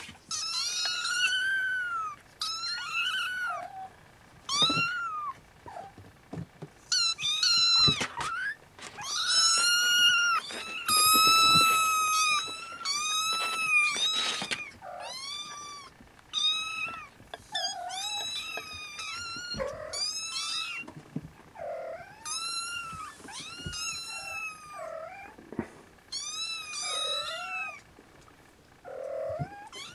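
Snowshoe Siamese kittens meowing one after another, high-pitched calls that rise and fall in pitch, about one a second. They are loudest about a third of the way in, and shorter, lower calls are mixed in during the second half.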